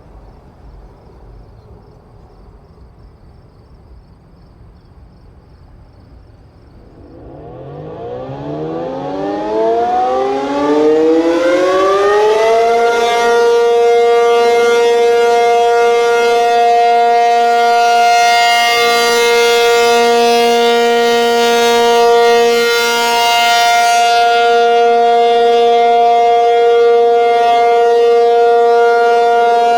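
Outdoor storm warning siren being tested: it winds up from silence about seven seconds in, rising in pitch for some five seconds, then holds one loud, steady tone.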